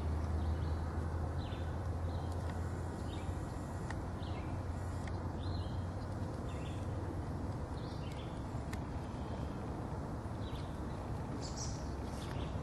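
Outdoor ambience: small birds chirping in short notes every second or so over a steady low hum.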